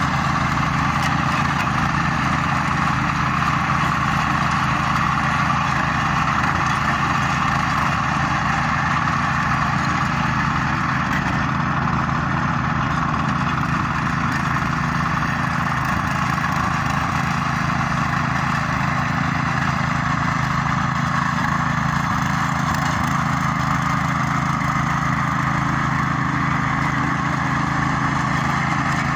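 Small walk-behind rotary tiller engine running steadily under load as its tines churn the soil.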